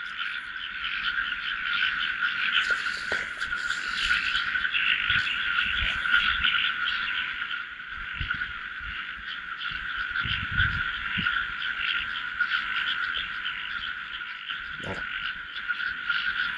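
Dense, steady chorus of many frogs calling in a rice paddy at night, with a few soft low knocks near the middle.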